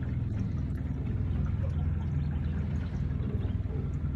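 Small boat's motor running steadily under way, a low rumble with water noise from the hull moving through floodwater.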